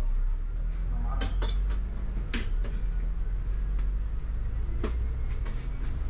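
Inside a double-decker bus in motion: a steady low engine and road rumble, with a handful of sharp irregular rattles and clicks from the bodywork and fittings, the loudest about two and a half seconds in.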